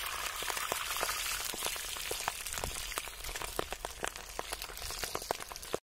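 Battered chicken feet deep-frying in hot oil in an iron kadai: a steady sizzle with many quick pops and crackles.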